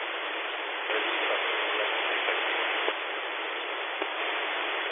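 AM radio receiver hiss from a software-defined radio scanning the aircraft band between transmissions. The static shifts in level abruptly about a second in, near three seconds and again around four seconds as the scanner hops from channel to channel.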